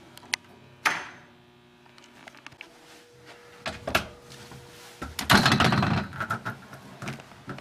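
Commercial door on an overhead hydraulic door closer being handled: a sharp click and a knock in the first second, then scattered knocks and a loud rush of door noise lasting about a second just past the middle as the door is swung.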